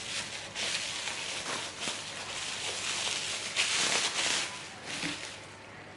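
Rustling handling noise with a few light taps as items are moved about by hand, fading out about five seconds in.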